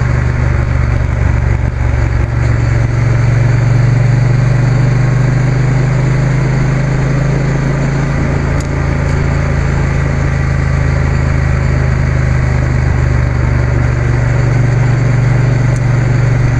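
Triumph Bonneville T120's parallel-twin engine running steadily at a cruise, with wind and road rush from riding at speed.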